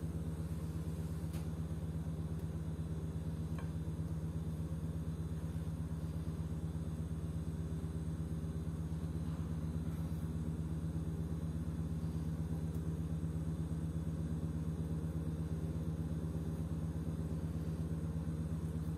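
Steady low hum, like a running motor or fan, with a few faint taps.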